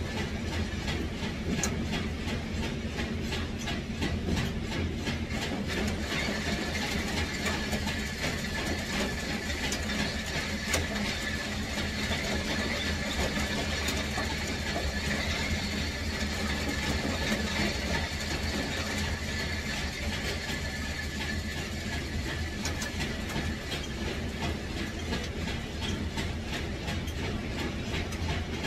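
Steady machinery running, a low hum under a continuous rattle of rapid, irregular clicks.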